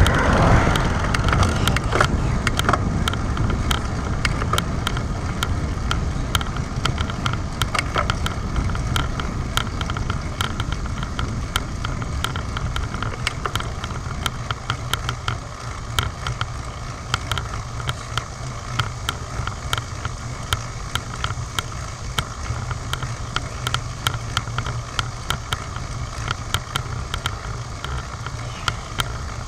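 Wind rushing over a bicycle-mounted action camera and tyre rumble as a road bike rolls along a paved road, with light ticks scattered throughout. A car passes in the oncoming lane at the very start, its noise swelling and fading within the first second or two.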